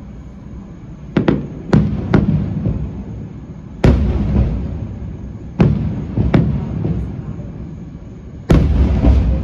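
Aerial fireworks bursting: a string of sharp booms, each trailing off in a rumble, about one every second or two, with the loudest near four seconds in and near the end.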